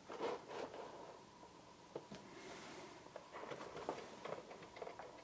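Faint handling noises from a papercraft cat made of card being moved about on a wooden table by hand: a scatter of light clicks and knocks, with a short rustle about two and a half seconds in.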